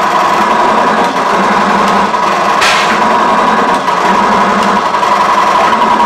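Metal-forming machine running with a loud, fast, continuous rattle over a steady high hum, with a short hiss about two and a half seconds in.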